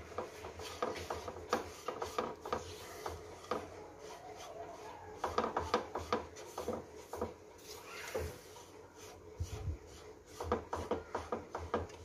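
Silicone spatula stirring and scraping a crumbly rice-flour dough around a nonstick pan, in quick irregular strokes, as the flour cooks and takes up the water.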